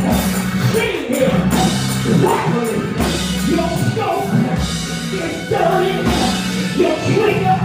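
A man singing a worship song into a microphone over backing music with held low notes.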